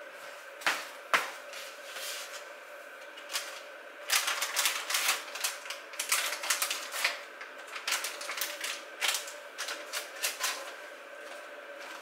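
A kitchen cupboard door clicking open with two sharp knocks, then several seconds of crisp crinkling and clicking as a plastic packet is handled and a paper towel is pulled from it. A faint steady hum runs underneath.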